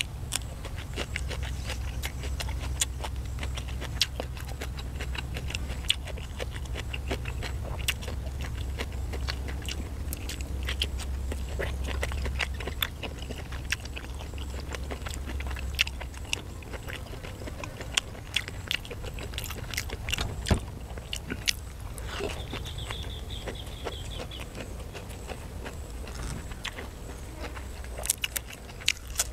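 Close-miked chewing and biting of crunchy food, green papaya salad and raw vegetables, with many sharp crunchy clicks and wet mouth sounds throughout.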